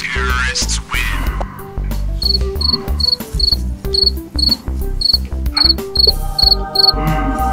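Background music with a steady bass line. After a brief falling sound effect at the start, a cricket-chirp sound effect sets in about two seconds in: short high chirps, two or three a second, that stop near the end.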